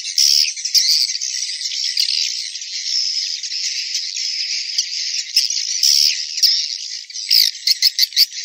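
Dense, high-pitched twittering of an edible-nest swiftlet colony, the kind of swiftlet call sound (suara panggil) played in swiftlet houses to lure birds, with a quick run of sharp chirps about seven seconds in.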